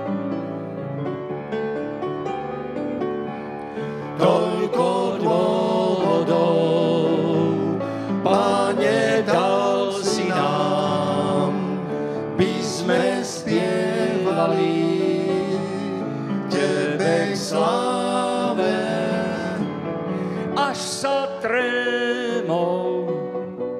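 A short piano passage, then from about four seconds in a man sings a Slovak hymn solo with piano accompaniment, his held notes wavering with vibrato.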